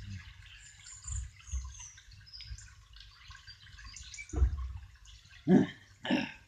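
Light rain dripping and pattering, with a soft low thump about four seconds in and two brief vocal sounds near the end.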